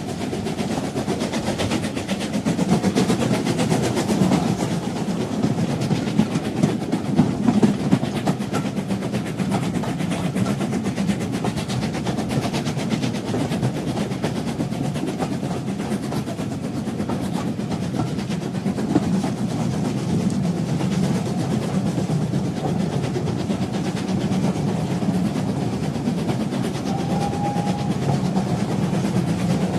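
Train running along the rails: a steady rumble with continuous clickety-clack of the wheels over the track.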